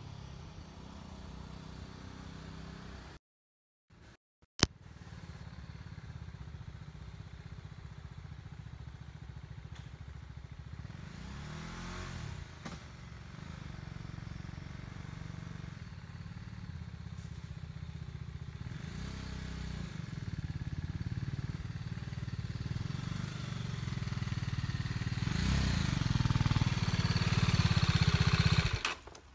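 Motorcycle engine running out of sight, growing slowly louder as it approaches, then cutting off abruptly near the end. A few seconds in, the sound drops out briefly and is followed by a single sharp click.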